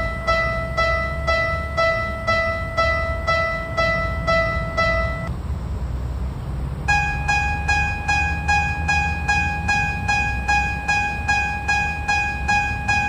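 Japanese level-crossing warning bell ringing its electronic 'kan-kan' ding about twice a second. It stops about five seconds in, and after a short gap a second, higher-pitched crossing bell starts ringing at the same pace. A steady low rumble runs underneath.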